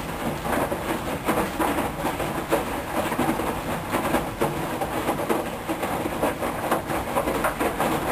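Hoover Dynamic Wash front-loading washing machine in its rinse, the drum turning and the wet towels churning and dropping in an irregular run of soft knocks over a steady wash of noise.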